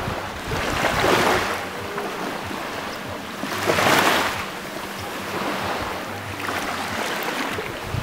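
Small sea waves breaking around rocks and washing up a pebble beach, the surf swelling louder twice, about a second in and about four seconds in.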